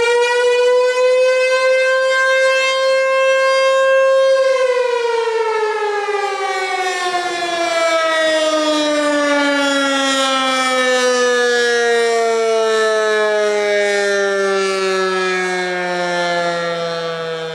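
American Signal Tempest T-128 single-tone rotating outdoor warning siren sounding the attack signal: it tops out its wind-up and holds its tone about four seconds. Then it winds down in a long slow fall in pitch.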